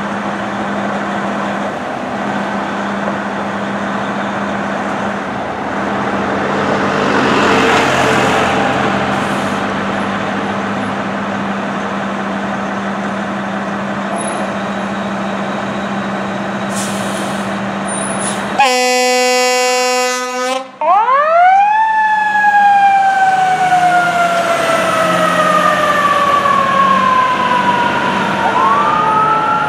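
Fire engine's diesel idling with a steady hum. After about eighteen seconds it gives a long air horn blast of about two seconds, then a siren winds up sharply and slowly falls in pitch, and a second, rising siren tone starts near the end.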